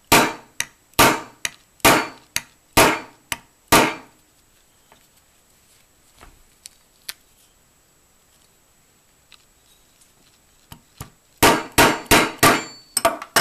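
Small hammer tapping a roll pin into an AR-15 trigger guard in an aluminium lower receiver. There are about nine sharp, evenly spaced strikes roughly two a second, a pause with a few light taps, then a quicker run of about eight strikes near the end as the pin goes home.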